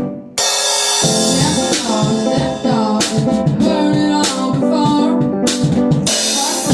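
Rock band playing an instrumental passage: drum kit with guitars. After a split-second break the full band comes back in about half a second in, with a cymbal crash, and there is another crash near the end.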